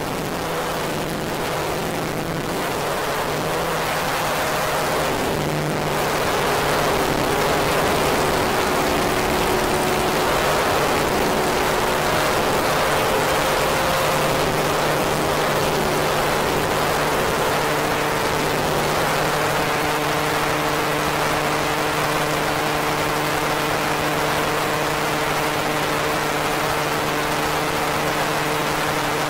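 Dark ambient synth drone: a dense hissing noise wash over a held low tone, with higher sustained notes that shift to new pitches every few seconds. It swells slightly over the first few seconds, then holds steady.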